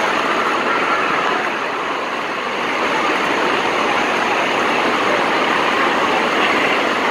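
Steady rush of churning, splashing water in a water-park pool.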